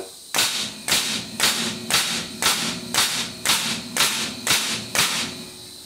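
Tacwise KDH90V pneumatic angled framing nailer in rapid-fire (bump-fire) mode, driving nails into timber: about ten sharp shots at about two a second, stopping about five seconds in.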